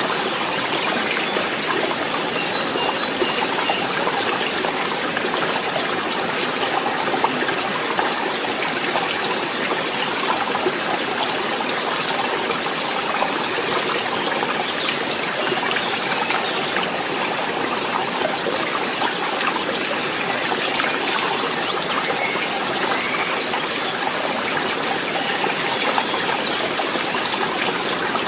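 Forest stream running steadily, a continuous even rush and trickle of flowing water.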